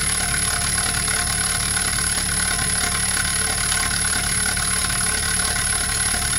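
Marksman Smart Pump, a wine transfer pump, running steadily as it pumps liquid into a barrel. It is in its slowdown stage at reduced flow, close to the barrel being full.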